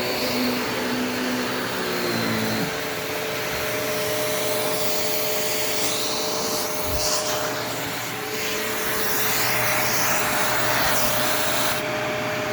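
Early gray Shark upright vacuum cleaner running, its motor giving a steady whine over the rush of air. A lower hum underneath stops about two and a half seconds in.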